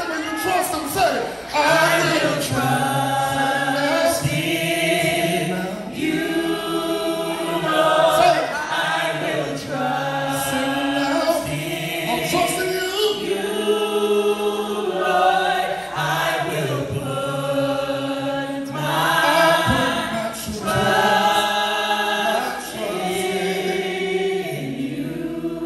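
A gospel vocal group, a male lead singer with three backing singers, singing held harmonies through a PA, in phrases a few seconds long.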